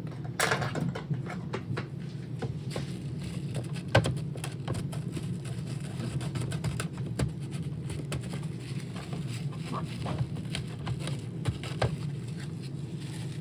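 Irregular small clicks, taps and scrapes of plastic Roomba parts being handled and picked at, the sharpest click about four seconds in, over a steady low hum.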